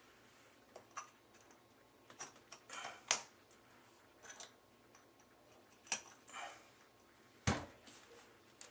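Light clicks and knocks of loose vintage floor tiles being handled and set back into epoxy, about ten at irregular intervals, a few with short scrapes; the loudest knock comes about seven and a half seconds in.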